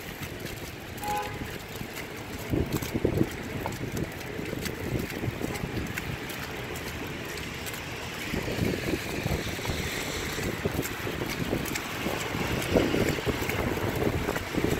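Wind buffeting the phone's microphone while walking through wet slush, with irregular soft footfalls in the slush.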